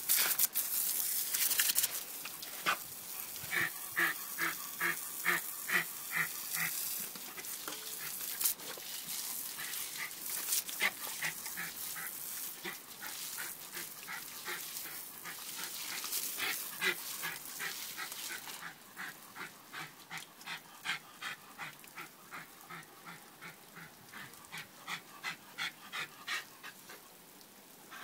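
A dog giving a long run of short, rhythmic yips and whines, about two or three a second, excited by the spray of a garden hose. The hiss of the hose spray is heard in the first couple of seconds, and the dog's sounds grow quieter toward the end.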